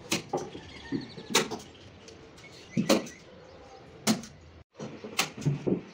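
Irregular series of sharp knocks and clacks, about ten in six seconds, from wooden speaker-cabinet panels being handled or struck during assembly. A brief dead-silent gap falls after about four and a half seconds.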